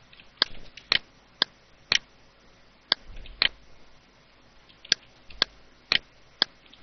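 Computer mouse button clicking: about ten short, sharp clicks, mostly about half a second apart, with a pause of a second or so in the middle.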